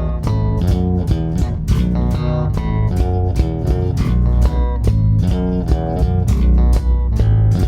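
Warwick Vampyre SN-5 five-string electric bass on its bridge pickup, played through a Neural DSP Quad Cortex amp modeller: a busy line of quickly plucked notes, several a second, with a strong low end.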